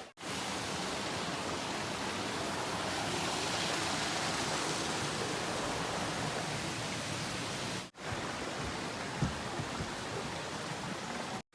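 Waterfall water pouring in a steady, even rush. The sound cuts out for a moment about eight seconds in and comes back a little quieter.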